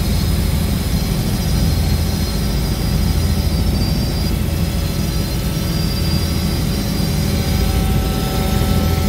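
Helicopter engine and rotor noise heard inside the cabin in steady cruise: a loud, even low drone with faint high steady tones above it.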